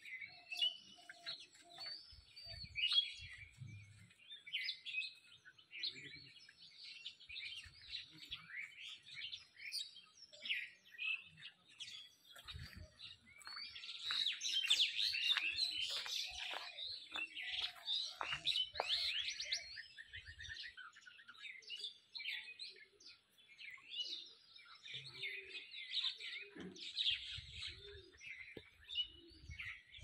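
Many small birds chirping and twittering at once in a dense, overlapping chorus of short high calls, busiest and loudest about halfway through.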